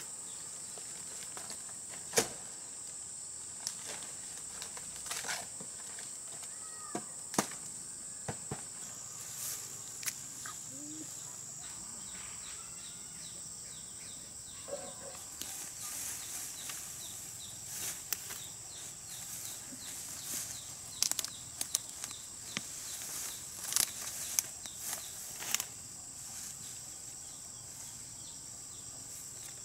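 Steady high-pitched drone of insects, with scattered rustles and snaps of someone moving through tall grass and brush, busier in the second half.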